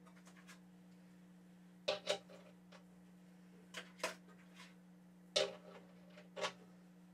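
Small metal sockets clicking and clinking in a socket set as they are picked through and tried for size, about seven sharp clicks at irregular spacing. A steady low electrical hum runs underneath.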